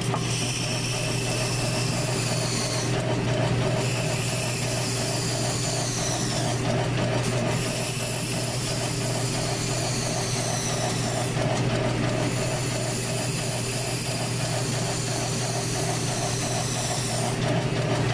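South Bend lathe running at low speed with a steady hum and a regular pulse, while a hand file is held against a spinning Razor scooter wheel to round off its contour. Four long rasping passes of a few seconds each, with short breaks between them.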